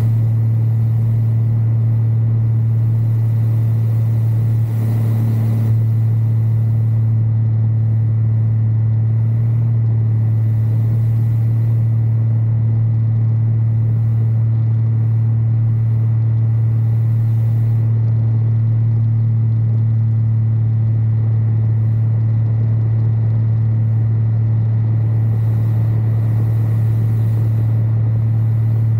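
Light aircraft's engine and two-bladed propeller running steadily in level flight: a constant low drone.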